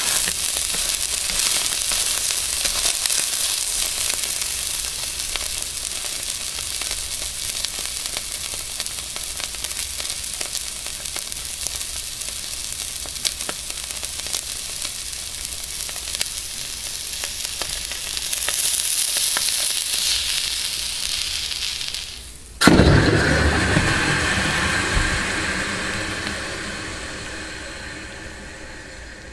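Raw ribeye steak sizzling and crackling under a red-hot nickel ball as the ball sears and burns into the meat, a steady hiss with scattered sharp pops that swells briefly. About three-quarters of the way in it cuts abruptly to a louder, deeper sound that slowly fades.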